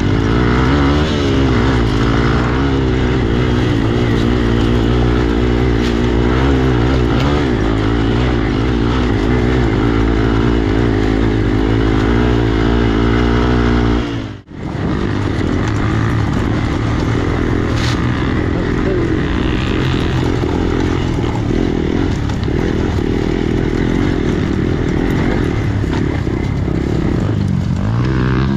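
Hero XPulse motorcycle's single-cylinder engine running, its pitch wavering up and down as the throttle changes, with the sound cutting out for a moment about halfway through.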